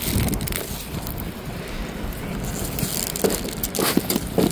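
Wind buffeting the microphone in a steady low rumble, with rustling of green onion leaves and crackles of soil as a clump of spring onions is pulled from a planter. The short rustles and crackles come more often near the end.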